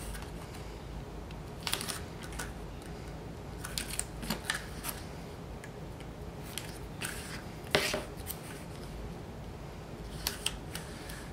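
Double-sided craft tape and paper being handled: scattered short crackles and rustles as tape is laid on a narrow paper strip and its backing liner is peeled away, with the loudest crackle about eight seconds in.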